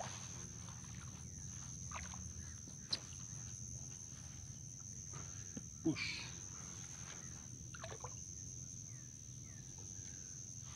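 Insects chirring in a steady high-pitched drone, with a few faint knocks and rustles from handling fishing gear.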